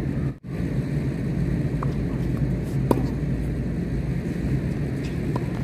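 Tennis racket hitting a ball in a rally: a few sharp pops, about two seconds in, near three seconds (the loudest) and near the end, over a steady low rumble that cuts out briefly near the start.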